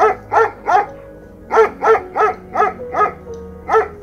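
A small dog barking in short, high-pitched yaps, about nine in a row with a brief pause about a second in, over background music.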